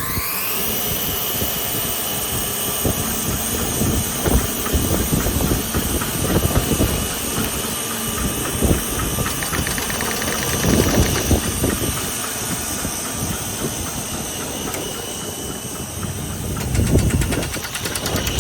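OMG EPM/70 oscillating window-frame drill running: its motor whine rises as it spins up at the start, then holds steady. Irregular knocks and clatter of the machine working the timber run over the whine.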